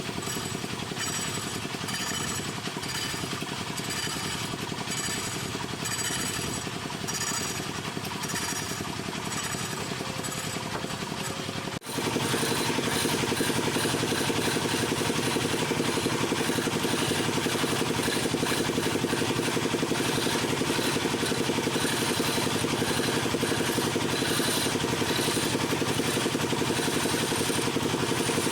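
A woodworking power tool running steadily with a fast chattering rattle. About 12 seconds in the sound cuts abruptly to a louder, steadier run of the same kind of machine noise.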